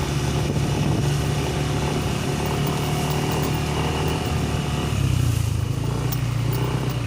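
Motorcycle engine running steadily, its note changing about five seconds in.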